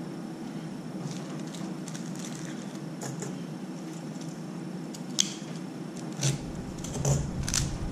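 A few small clicks and taps as small pump parts and a screwdriver are handled on a tile counter, mostly in the second half, over a steady room hum.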